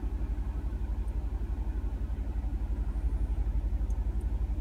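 Mercedes-Benz G550's V8 engine idling, heard from inside the cabin as a steady, evenly pulsing low rumble.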